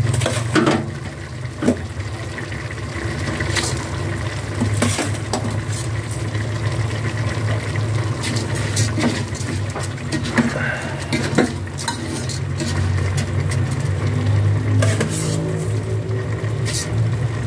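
A utensil stirring glutinous rice into chicken in an aluminium pot, with scattered scrapes and clinks against the metal and some sizzling, over a steady low hum.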